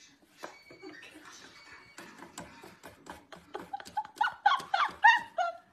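Claws scrabbling and tapping on a wooden stool's rungs as a cat clambers through it, a string of sharp clicks. From about four seconds in, a person giggles in short high bursts, the loudest sound.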